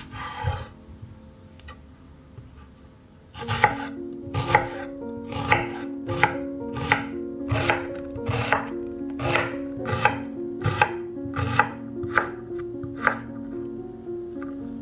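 Kitchen knife cutting through an onion onto a bamboo cutting board: one cut at the start, then after a pause of about three seconds a steady run of chops about every two-thirds of a second, stopping shortly before the end.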